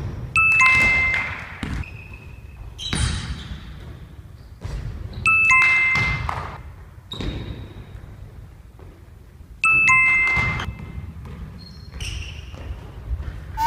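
A short chime sound effect, the same one three times, about every four and a half seconds, over basketballs bouncing on a wooden gym floor.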